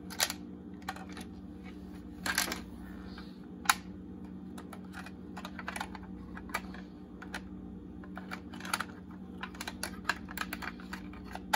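Irregular small plastic clicks and taps as hands handle an opened Fashion Polly (Polly Pocket) plastic carry-case playset and its tiny plastic accessories, over a steady low hum.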